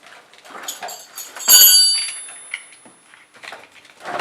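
Car battery cable clamps being worked off the terminal posts: light metallic clatter and knocks, with one sharp ringing metal clink about one and a half seconds in that dies away over about a second.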